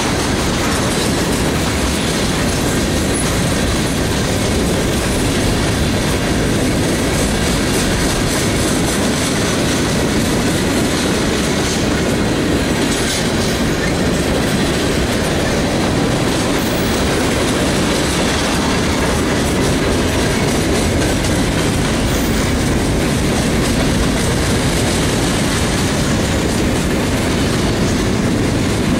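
Freight train cars rolling past, a steady rumble of steel wheels on rail with clacking over the rail joints.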